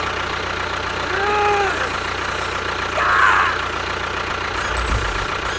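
An engine running steadily at idle with a low hum, and a short rising-and-falling tone about a second in.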